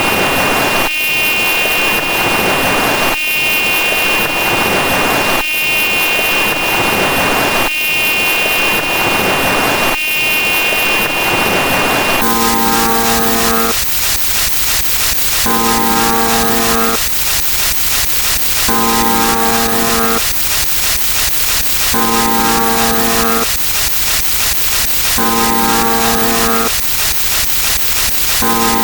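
A dense stack of layered sound effects: ocean waves wash in about every two seconds over a steady high ringing tone and fast ticking. About twelve seconds in, a deep ship's horn joins and sounds in repeated blasts of about a second and a half, roughly every three seconds.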